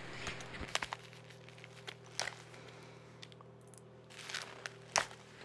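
Movement and handling noise: rustling with scattered light knocks and steps over a faint steady hum, with sharper clicks about a second in, a little after two seconds, and near the end.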